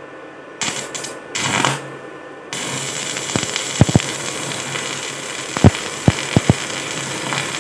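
Stick welding arc from a RYU 450-watt IGBT inverter welder set to 100 amps. A few short bursts as the electrode is struck, then from about two and a half seconds in a steady hiss of the burning arc, with sharp pops now and then.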